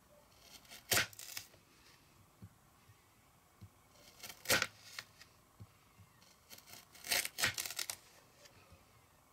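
Chef's knife slicing through a raw carrot on a plastic cutting board: three crisp crunches as the blade cuts off rounds, about three seconds apart, the last one drawn out in several quick snaps.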